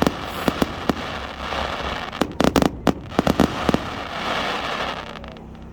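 Fireworks display going off: rapid sharp bangs and pops over a continuous crackle, with a dense cluster of bangs in the middle, then dying away near the end.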